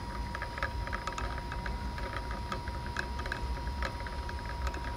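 Water flowing through a 4-inch wafer-style double-guided disc check valve at about 250 gallons a minute. The disc moves back and forth in the flow, making a slight, irregular light clicking over a low rumble. The noise is the sign of the disc not holding steady.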